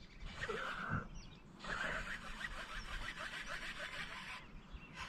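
Fishing reel being cranked to bring in a hooked bass: a faint, rhythmic rasp of small ticks, about five a second, from about a second and a half in until near the end.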